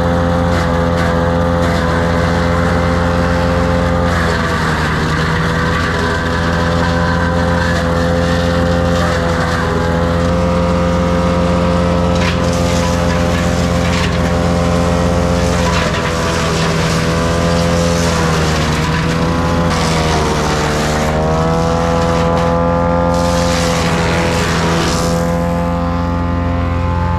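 Wood chipper's engine running steadily at speed, its pitch sagging and recovering a few times as branches are fed in and load it down. Stretches of crackling and crunching as the wood is chipped.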